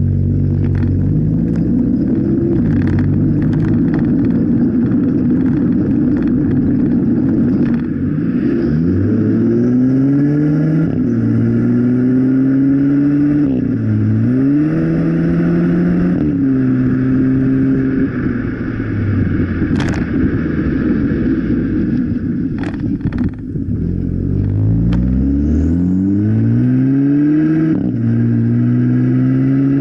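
Exhaust of a Volkswagen Golf MK7 1.4 TSI turbocharged four-cylinder, rear muffler removed and replaced with a 3-inch GTI-style Y pipe, heard close up while the stationary engine is revved repeatedly: the pitch climbs and falls several times, is held at raised revs for a couple of seconds, then climbs in quick blips near the end. A few sharp cracks come from the exhaust as the revs drop, about two-thirds of the way through.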